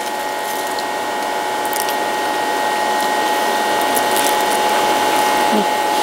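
Steady buzzing drone with a held high tone, slowly growing louder.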